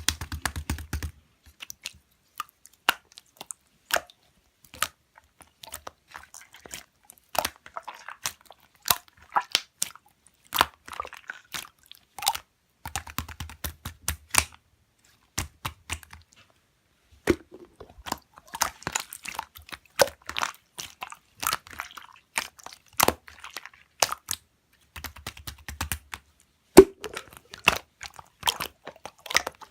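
Slime being squeezed, poked and stretched by hand, giving a dense, irregular run of sharp clicking and popping sounds as air pockets burst.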